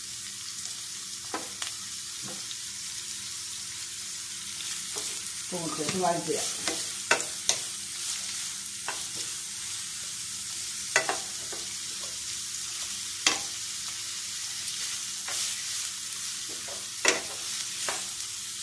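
Diced onions sizzling as they sauté in a frying pan, stirred with a wooden spoon that knocks and scrapes against the pan every few seconds. The onions are being cooked just until soft.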